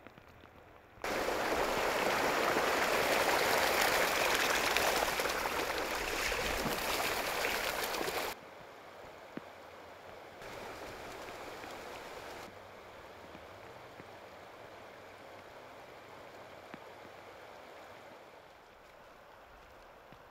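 Steady rush of floodwater, with no tone or rhythm. It starts suddenly about a second in, stays loud for about seven seconds, then drops abruptly to a much fainter rush that swells briefly around the middle.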